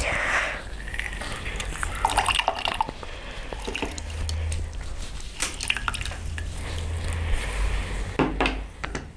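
Lime juice dripping and trickling into a glass as a lime half is pressed in a hand-held squeezer, with scattered clicks and a sharp knock about eight seconds in.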